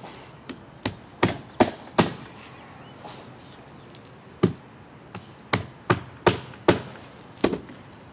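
A hammer driving roofing nails into asphalt shingles: a quick run of about five sharp strikes in the first two seconds, then after a pause about seven more at an uneven pace.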